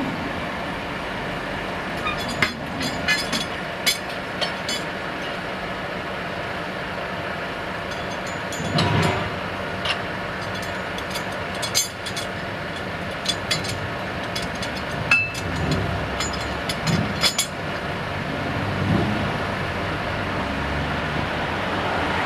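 Steel tie-down chains and chain load binders clinking and clanking in short irregular clicks as they are hooked on and tensioned to lash a tram down on a trailer, over a steady mechanical hum.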